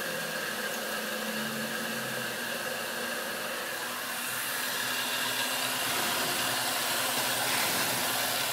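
Grizzly G0704 milling machine, converted to CNC, running: steady spindle whir with machine noise as a quarter-inch end mill cuts an arc in a polycarbonate sheet. The sound gets a little louder about halfway through.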